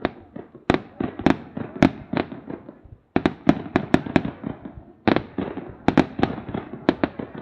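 Fireworks bursting: a rapid, irregular string of sharp bangs, several a second, with crackling between them. The sound drops out for a moment about three seconds in.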